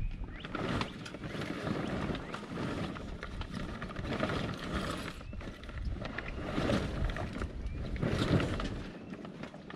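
Sailcloth rustling and flapping as a sail is hoisted up the mast, an uneven noise that swells and fades with small clicks and knocks mixed in.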